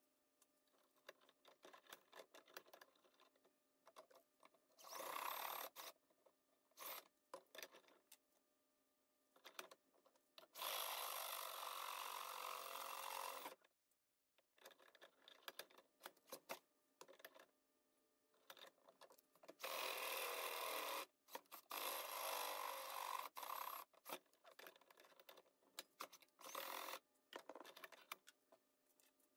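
Handheld electric drill drilling holes through small spacer pieces. It runs in several bursts, the longest about three seconds, with small clicks and knocks between them.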